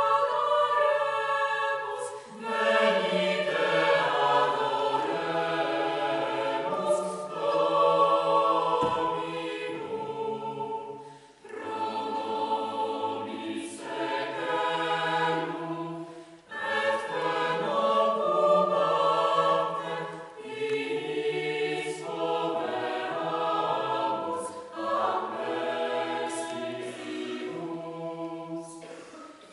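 Mixed chamber choir of men's and women's voices singing a cappella, holding sustained chords in phrases broken by short pauses.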